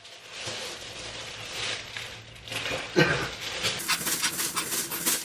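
Crinkling and rustling of the paper sheet on a clinic exam table as someone shifts and kicks on it, denser and crackly near the end. A short voice-like sound about three seconds in.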